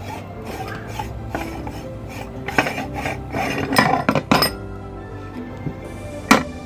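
Electric meat grinder running with a steady hum while brittle food is crushed in it: irregular crackling and crunching, in bunches of sharp cracks about two and a half to four and a half seconds in and one loud crack near the end.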